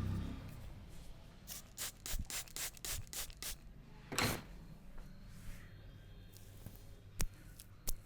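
Hands working over hair and scalp in a head massage: a run of quick rubbing strokes, about five a second, then one longer rub. Two sharp clicks come near the end.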